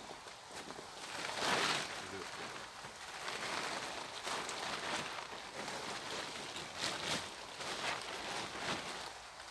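Plastic tarpaulin rustling and crinkling as it is handled and its bottom edge pulled into place, with a louder rustle about one and a half seconds in.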